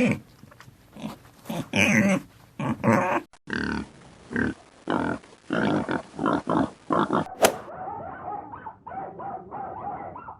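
Short animal calls repeated several times a second, from recordings cut together about a third and about two-thirds of the way through.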